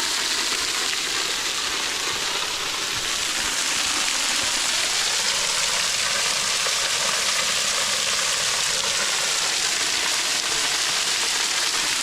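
Small waterfall pouring and splashing in a steady, even rush.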